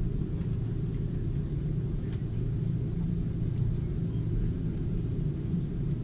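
Steady low rumble inside the cabin of an Airbus A330-300 airliner taxiing: engine and rolling noise carried through the fuselage.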